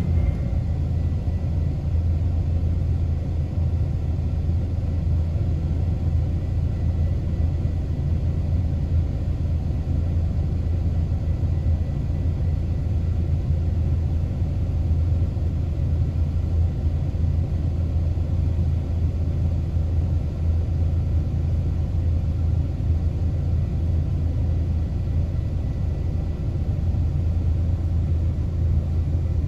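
Steady low rumble of an engine running at idle, unchanging in level.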